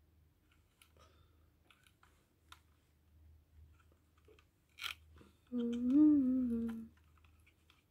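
A woman hums one short note, about a second and a half long, lifting slightly in pitch in the middle before settling, about five and a half seconds in. Before it come faint scattered clicks and rustles of a handheld mini sewing machine and fabric being handled, with a sharper click just before the hum.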